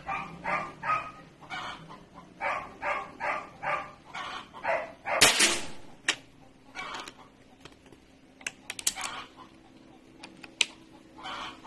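A dog barking in a quick series, about two or three barks a second, then more scattered barks. A loud, sudden burst comes about five seconds in, followed by a few sharp clicks.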